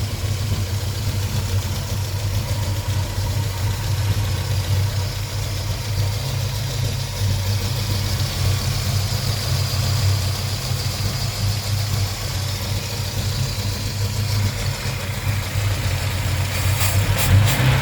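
Volvo B20 four-cylinder engine with twin SU HIF6 carburettors idling steadily. The idle is rough because the fuel pressure is too high. A few sharp clicks come near the end.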